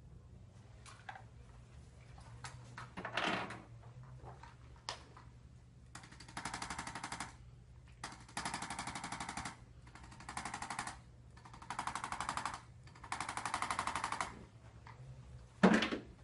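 A handheld electric chiropractic adjusting instrument firing five bursts of rapid pulsing, each about a second long. A few soft knocks come before them, and a sharp thump comes near the end.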